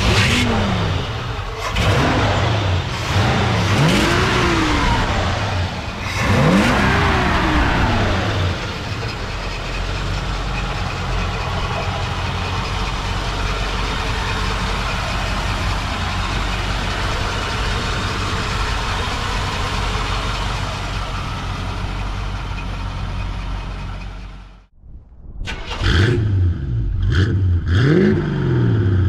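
1956 Chevrolet Bel Air's carburetted engine blipped through about four quick revs, each rising and falling, then settling into a steady idle through its dual exhaust. After a brief break near the end, it is revved again in a few quick blips.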